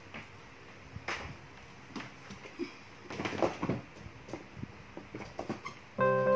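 Scattered clicks, knocks and rustles of things being handled on a desk, densest a little past the middle. Background music cuts in abruptly near the end.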